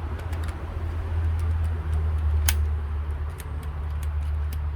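Camec door's outer handle and lock mechanism being worked, giving a string of light clicks with one sharper click about two and a half seconds in, over a steady low rumble.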